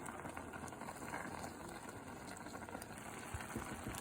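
A pot of liquid at a boil: a steady bubbling hiss with small scattered pops.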